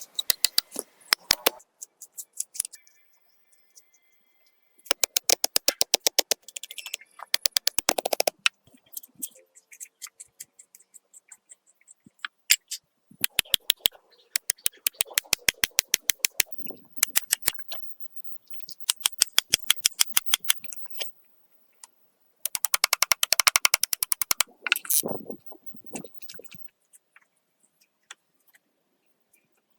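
Rapid sharp mechanical clicking, about ten clicks a second, in bursts of one to three seconds with pauses between.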